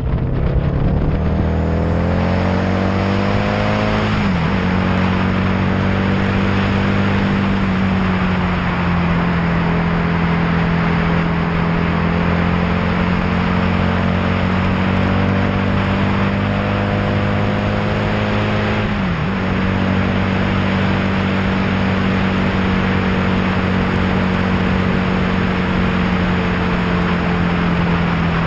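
Vehicle engine heard from on board at road speed over heavy road and wind noise. The engine note climbs, drops sharply at a gear change about four seconds in, eases off a little, builds again, and drops at another gear change about two-thirds of the way through.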